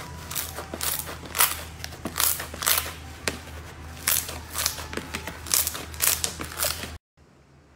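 Slime being squeezed and pressed by hand, giving irregular sharp crackling pops about two a second. The sound cuts off abruptly near the end.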